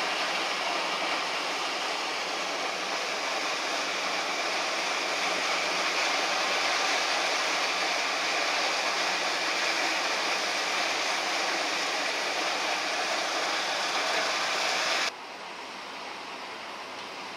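Truck-mounted ice crusher and blower running, a loud, even rushing noise as crushed ice is blown through a pipe into a fishing boat's hold. About fifteen seconds in it cuts to a much quieter steady hiss.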